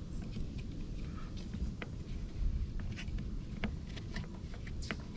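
Scattered light clicks and taps from hands handling and fitting a small plastic camera bracket at a truck cap's brake light, over a low steady rumble.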